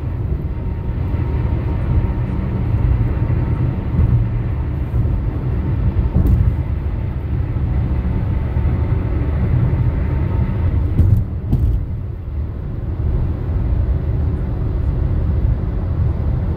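Steady low rumble of road and engine noise inside a moving car's cabin at highway speed. A faint thin tone runs through the first two-thirds and then stops.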